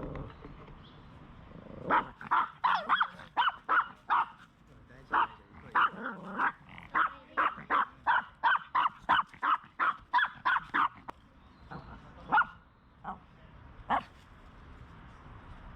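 A dog barking in a rapid string of sharp barks, roughly two to three a second for about nine seconds, then three more single barks spaced out near the end. The barking is agitated, from an upset dog.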